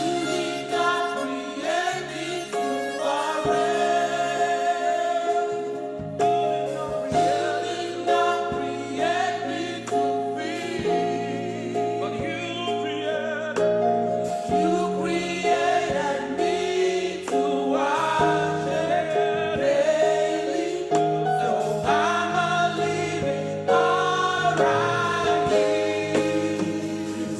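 Gospel worship song sung by a choir, with voices joining in over held accompaniment chords and low bass notes.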